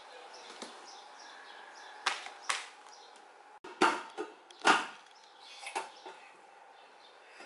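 Several sharp knocks of hard objects on a tile floor: two about two seconds in, the loudest around four and five seconds in, then a lighter pair near six seconds.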